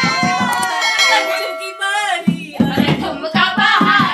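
Singing accompanied by a dholak beating a steady rhythm; the drum drops out for about a second mid-way while the singing holds a long note, then comes back in.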